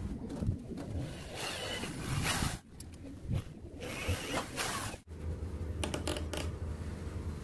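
Electric hand drill boring holes through a PVC plastic plate, in two bursts of a little over a second each that cut off abruptly. A steady low hum follows.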